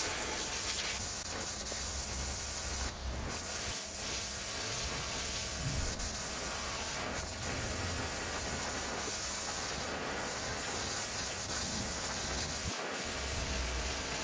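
Pressure washer jet spraying, a steady hiss of high-pressure water, with a brief dip about three seconds in.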